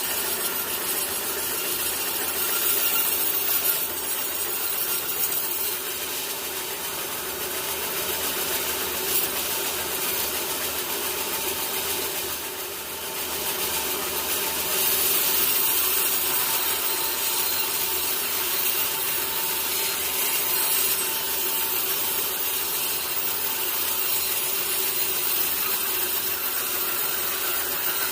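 Sawmill saw blade running steadily through a teak log, a continuous hissing cut over a steady machine hum, easing briefly about halfway through.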